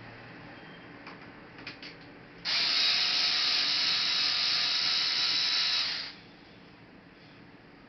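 Small electric screwdriver running for about three and a half seconds with a high whine, backing out a laptop case screw, after a few light clicks.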